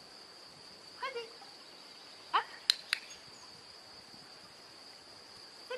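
Two short rising voice sounds, then two sharp clicks in quick succession about halfway through, over a steady thin high-pitched tone.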